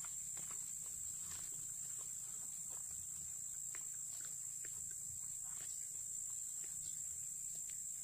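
Steady high-pitched chorus of insects, with faint light clicks and taps scattered through it.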